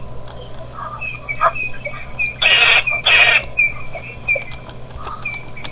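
Wild birds calling: a run of short, high, repeated notes, with two loud harsh calls in quick succession about halfway through, over a steady low hum.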